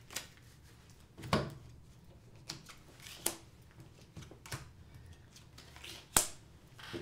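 Playing cards being handled and dealt onto a wooden table: a string of separate taps and slaps as cards are shuffled, dealt and flipped. The sharpest snap comes a little after six seconds in.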